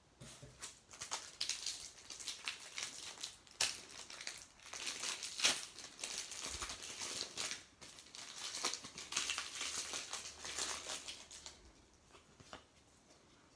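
Foil wrapper of a Match Attax trading-card pack crinkling and tearing as hands rip it open, in irregular crackles that die away near the end.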